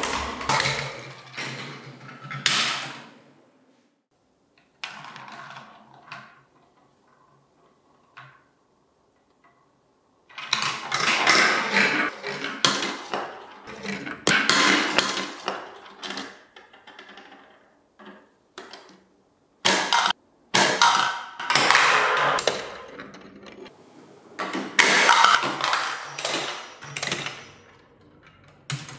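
Plastic marbles rolling and clattering through a VTech Marble Rush plastic track, in bursts of rattling a few seconds long with short quiet gaps between runs.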